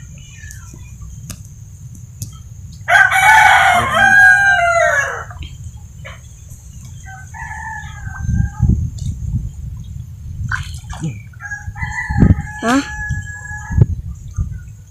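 A rooster crowing once, loudly, a call of about two seconds that drops in pitch at its end. Two fainter, shorter calls follow later, over a steady low rumble.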